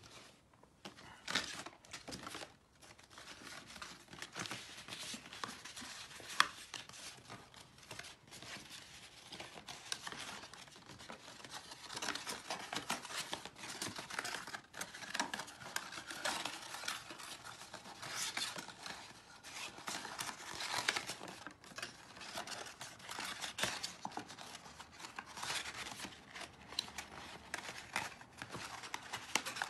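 Black card panels of a gift box being folded and handled, with continual rustling, scraping and small clicks of card against card.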